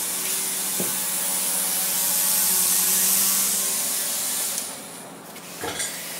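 Electric motor and rotor of a small helicopter test-bed rig running, a steady hum under a loud rushing of air, which falls away about four and a half seconds in. A single knock near the end.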